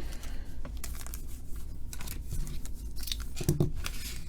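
Trading-card packaging being torn open and crinkled by hand: a run of crackles and short clicks.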